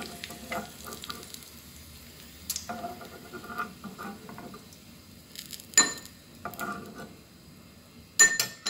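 Metal ladle scraping and scooping fried garlic out of hot cooking oil in a nonstick frying pan, the oil sizzling. Sharp metal clinks about six seconds in and twice near the end.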